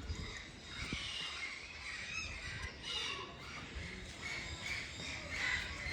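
Several birds calling over one another in short, repeated calls.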